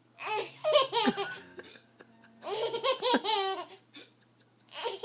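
Baby laughing in high-pitched fits: two bursts of about a second each with a pause between, and a third starting near the end.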